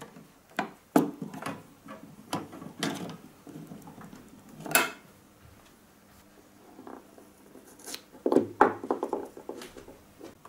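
Handling noises: a round plug and its cable being pushed into a socket on the case of an old valve sound amplifier, with scattered clicks, knocks and rustles against the case, thickest near the end.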